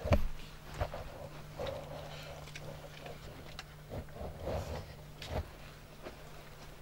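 A few short dull knocks, the loudest right at the start, with soft rustling between them over a steady low hum.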